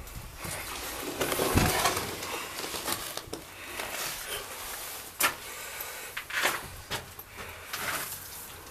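Scuffing, rustling and scraping of someone moving through a tight space, with a few sharp knocks and clicks.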